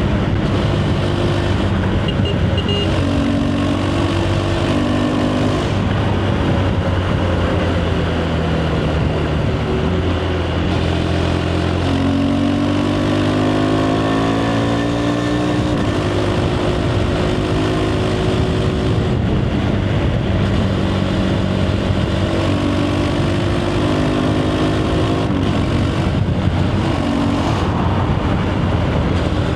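KTM 390 Adventure's single-cylinder engine through its stock exhaust while riding. The engine note rises and falls several times with throttle and gear changes.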